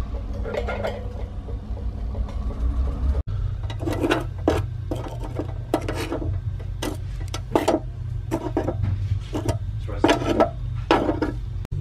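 Metal tongs clicking and knocking against hookah charcoal cubes and the coils of an electric burner as the coals are turned, a string of short, irregular taps over a steady low hum.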